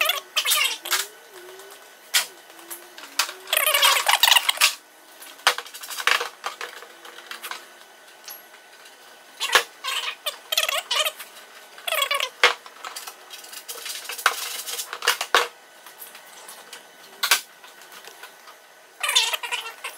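Irregular clicks, knocks and short bursts of plastic-and-metal clatter as the fairing panels and their fasteners are taken off a crashed race bike.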